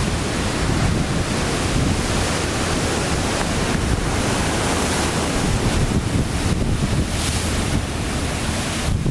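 Ocean surf breaking and churning against rocks and a concrete seawall, a continuous rush of white water, with wind buffeting the microphone in a low rumble.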